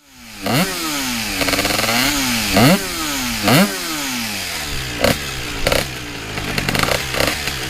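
Husqvarna SMR 125's two-stroke single-cylinder engine being revved with quick throttle blips, each shooting up sharply and falling back toward idle. Three big blips come in the first four seconds, then several smaller, shorter ones.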